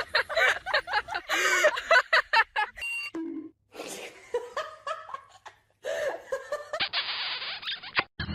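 People laughing, with quick high peals, for about the first three seconds. After a short gap come a few scattered short sounds, and near the end about a second of steady hiss.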